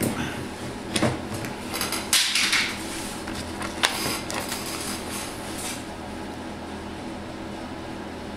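Hard clicks and clatter of small metal hand tools being picked up and set down on a workbench, several knocks in the first half, followed by a steady low hum.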